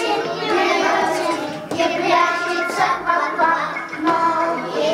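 Young children's voices singing a song in phrases of held notes over backing music.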